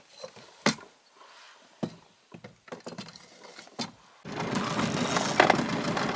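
Scattered light knocks and rattles from handling a landing net and setting its pole in a holder on an inflatable boat. About four seconds in, a steady rush of wind and choppy water starts suddenly, with small clicks.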